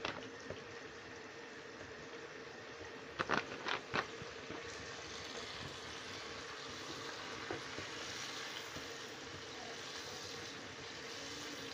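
Chicken korma masala, wet with a splash of water, sizzling and bubbling steadily in a nonstick wok over a gas flame. A faint steady hum sits underneath. About three seconds in, a spatula knocks three times in quick succession against the pan.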